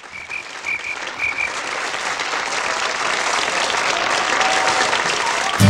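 Audience applauding, the clapping swelling steadily louder, with a few short high-pitched notes in the first second and a half. The karaoke backing track starts right at the end.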